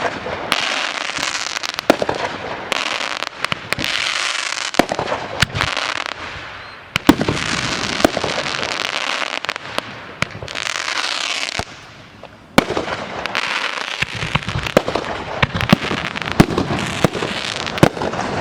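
Consumer fireworks going off in quick succession: many sharp bangs over a dense, continuous crackle. There is a short lull about two-thirds of the way through before the bangs and crackling start up again.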